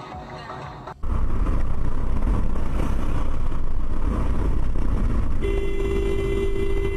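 Road and wind noise inside a car at highway speed, a loud low rumble that starts suddenly about a second in. Later on, a horn starts sounding as one long steady blast.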